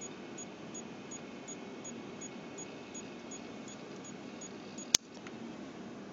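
Macintosh Color Classic giving off short, high-pitched beeps about three times a second over a steady low hum, from a component near the capacitors and transformers on its board, not the system speaker: a sign of a fault. A sharp click comes about five seconds in, and the beeping stops after it.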